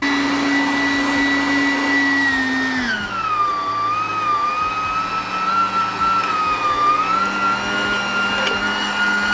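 Electric home meat grinder running: a steady high motor whine that drops in pitch about three seconds in, as meat reaches the plate and the motor takes the load, then wavers while it grinds the meat through.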